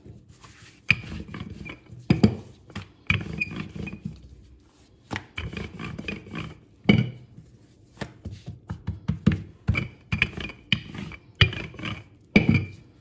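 Wooden rolling pin rolling out a soft, buttered paratha dough on a silicone baking mat: a run of uneven back-and-forth strokes, each a short rumble, with occasional sharper knocks as the pin lands.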